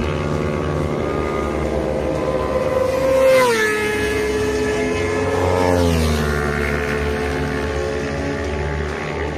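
Sport motorcycle at high revs flying past: a steady, high engine note that is loudest about three seconds in, where its pitch drops as it passes. The pitch drops again a couple of seconds later as it pulls away.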